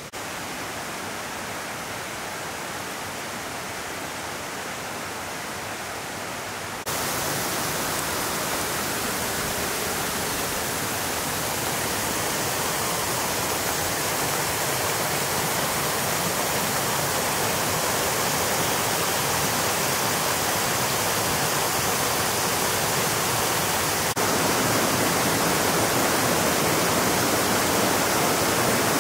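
Steady rushing of a mountain stream over rocks, stepping up louder twice.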